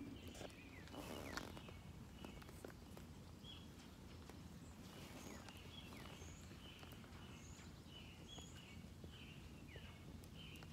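Faint chirping of small birds, short calls repeating about once or twice a second, with a brief rustle about a second in.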